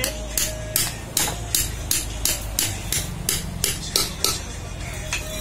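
Sharp metal-on-metal knocks, about two to three a second, as a steel rod is struck down against the bearing inside a Yanmar harvester track roller's hub to drive it, under a steady low hum.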